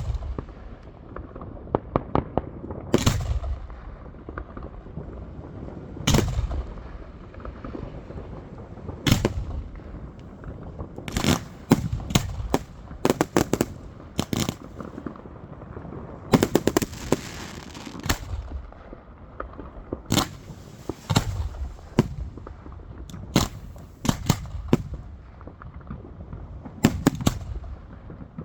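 Fireworks going off: a run of sharp bangs, the first few single reports about three seconds apart, each with a low rumbling tail. They are followed by quick clusters of crackling reports, with a few seconds of dense hissing a little past the middle.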